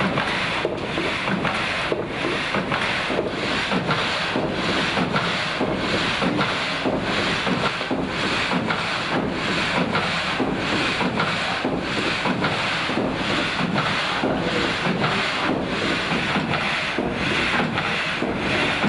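Water-powered vertical frame saw cutting through a log, its blade going up and down in a steady rhythm of about one and a half strokes a second.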